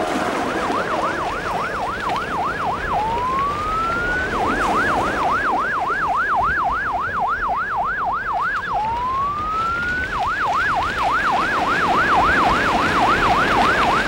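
Siren of a bird-scaring siren truck, sounded to drive cormorants off fish ponds: a fast yelping warble of about three sweeps a second, twice giving way to one slower rising wail before the warble resumes.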